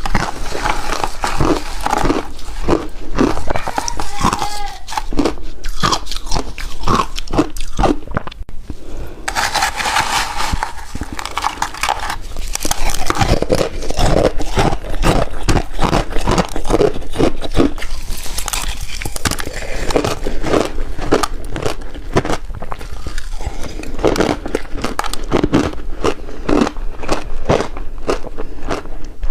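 Close-miked biting and chewing of a refrozen chunk of shaved ice: dense, rapid crunches, several a second, with no pause.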